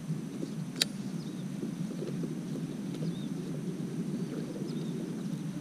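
Steady low outdoor rumble, with one sharp click a little under a second in and faint short high chirps here and there.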